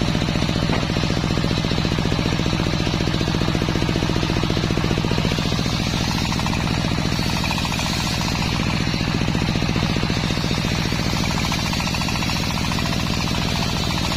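Engine-driven homemade circular sawmill running steadily, its engine pulsing in a fast, even rhythm, while the blade saws through waru wood.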